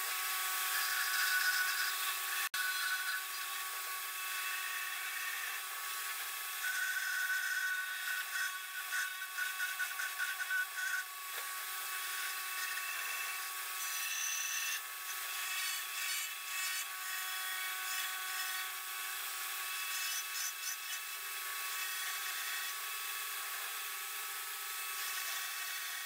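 Angle grinder running at speed, driving a flexible shaft with a pear-shaped rotary burr that grinds into wood: a steady motor whine with the uneven rasping of the burr cutting the board.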